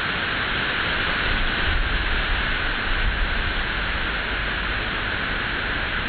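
Steady rushing wind noise, with low gusts buffeting the microphone.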